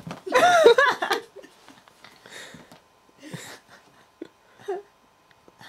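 A woman laughing, a short burst of quick rising-and-falling 'ha' sounds about half a second in, followed by a few soft breathy laughs.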